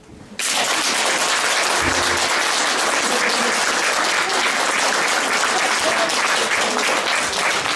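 Audience applauding: clapping that starts suddenly about half a second in and carries on steadily.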